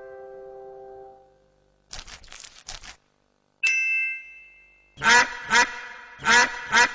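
A mallet chord fades out, then a short burst of noise plays, then a single bell ding rings and decays. A duck quack sound effect follows: four quacks in two quick pairs.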